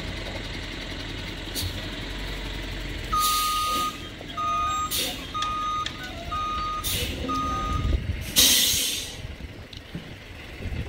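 A truck's reversing alarm beeping five times, about once a second, over a diesel truck engine running. Several short loud hisses break in, the loudest just after the beeping stops.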